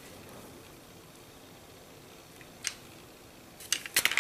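Faint room hiss with hand-handling of pistols and a holster: a single light click a little past halfway, then several sharp clicks and knocks near the end.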